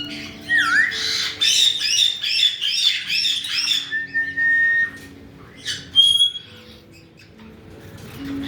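Caique parrots calling: a quick run of repeated arching squawks, about three a second, then a long steady whistle and a single sharp call near the end.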